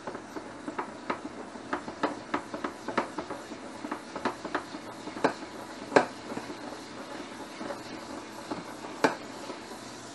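Kitchen tongs clicking and scraping against a pot while spaghetti is stirred in boiling water, irregular clacks two or three a second. The loudest clack comes about six seconds in and another near nine. A steady sizzling hiss from bacon frying in a pan runs beneath.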